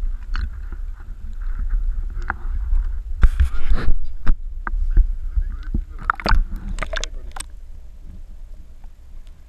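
Water sloshing and splashing around a waterproof action-camera housing held at the surface, with a low rumble throughout and sharp splashes a little after three seconds and again around six to seven seconds. Near the end the sound turns dull and quieter as the camera goes under water.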